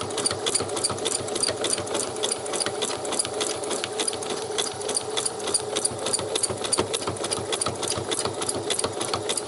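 Domestic electric sewing machine running steadily on a very fine zigzag stitch: a rapid, even clicking of the needle over the motor's hum.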